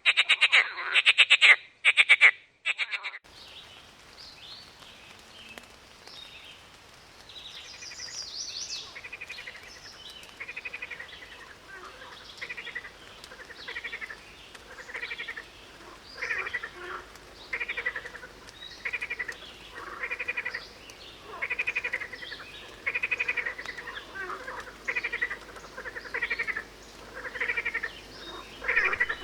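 Frogs croaking in short pulsed calls that repeat about once a second and grow louder, with a few bird chirps about eight seconds in. The opening three seconds hold a louder, rapid run of pulsed croaks that cuts off abruptly.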